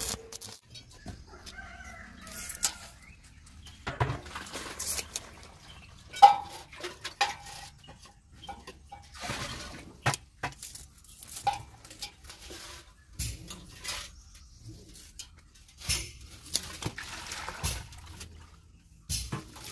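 Chickens clucking intermittently, with scattered clinks and knocks of steel tubing and small metal parts being handled. The crackle of an arc weld cuts off just at the start.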